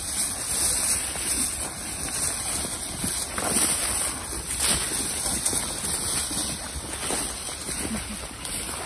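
Rustling and crunching of tall dry grass and weeds as people and a tracking dog push through them on foot, with wind rumbling on the microphone.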